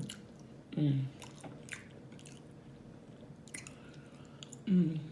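Close-up chewing and mouth clicks of a person eating, with two short voiced hums, one about a second in and one near the end.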